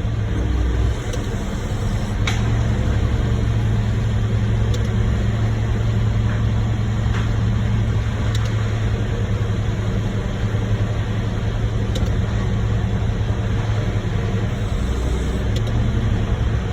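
Heavy diesel engine running steadily at a constant speed, with a few faint ticks over the top, during a concrete pour into a skid steer bucket.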